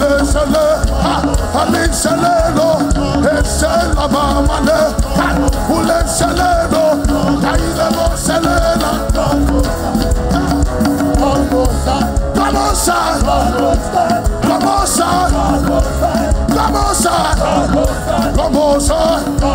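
Upbeat live worship music with a steady beat, and voices singing over it.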